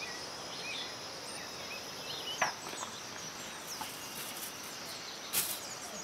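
Forest ambience: insects keeping up a steady high drone, with scattered short bird chirps and whistles. Two sharp clicks stand out, about three seconds apart.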